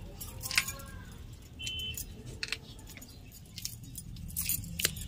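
Bangles clinking and flat-bean (sem) pods snapping as hands break and string the pods over a steel bowl: a loose run of short sharp clicks and jingles.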